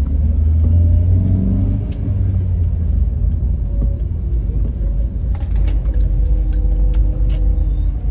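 Steady low rumble of a moving car's engine and tyres, heard from inside the cabin, with a few faint clicks in the second half.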